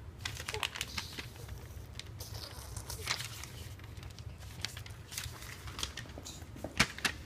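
Scattered light clicks and rustles, with one sharper click near the end, over a steady low hum.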